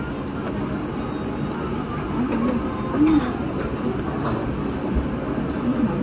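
Steady low rumble, with a few short low hums rising and falling over it.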